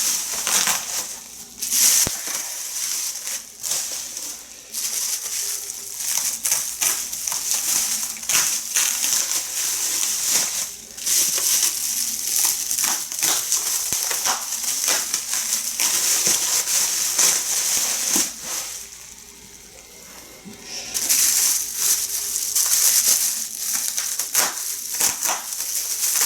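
Bubble wrap being handled and pulled off a packed elevator panel: continuous irregular crinkling and crackling plastic, with a brief lull about two-thirds of the way through.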